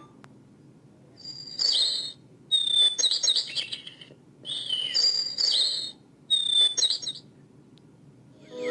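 Bird-song wake-up sound of a REACHER clock radio's alarm, played through its small speaker: four short bursts of high chirping, each about a second long, with brief pauses between them.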